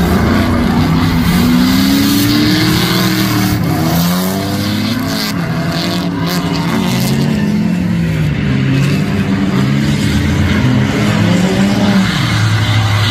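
Two drift cars, a Nissan S-chassis and a Fox-body Mustang, sliding in tandem with their engines revving hard, the pitch rising and falling as the throttle is worked, over continuous tyre squeal and skidding. A few sharp cracks cut through in the middle.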